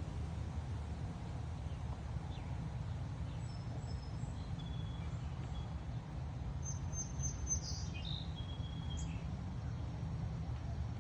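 Strong wind buffeting the microphone as a steady low rumble, with a bird chirping faintly over it: a few short high calls in the middle, the busiest run a little past halfway.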